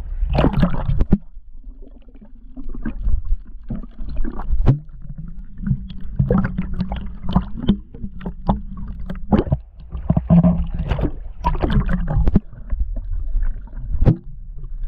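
Seawater splashing and sloshing around a camera held at the surface by a swimmer: irregular splashes over a low rumble of moving water.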